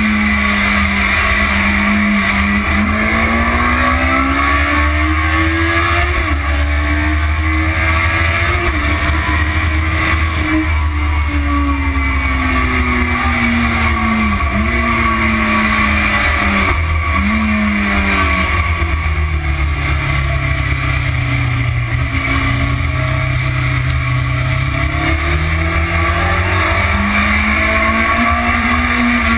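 Motorcycle engine on track, heard from a camera mounted on the bike, its pitch rising and falling with the throttle: it climbs early on, dips briefly twice about halfway through, stays low for several seconds, then climbs again near the end. A constant rush of wind noise sits underneath.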